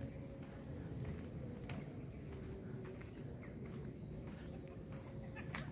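Crickets chirping steadily in a high, even trill over a low background rumble, with a few faint ticks.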